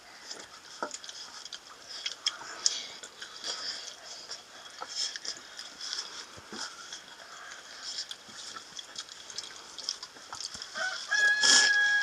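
A rooster crowing once near the end, a long held call that drops in pitch as it finishes. Before it there are only faint scattered clicks.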